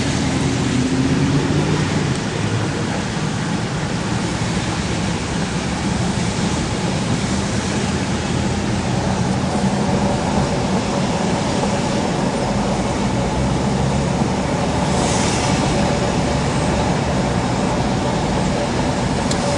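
A car driving, with steady engine and road noise.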